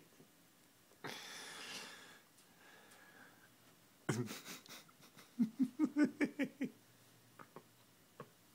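A long breathy exhale about a second in, then a quick run of short, soft voiced huffs in the middle, like quiet breathy laughter, with a few light clicks between.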